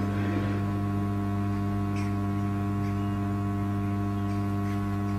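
Steady low mains hum from the faulty channel of a Quad 303 power amplifier, running at reduced supply voltage; the hum is the fault symptom, since the good channel stays silent.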